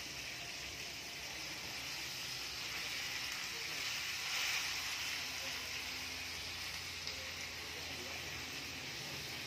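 Spice-coated fish shallow-frying in oil on a tawa over a low gas flame, a steady sizzle that swells briefly about four seconds in, as the fish nears the end of cooking.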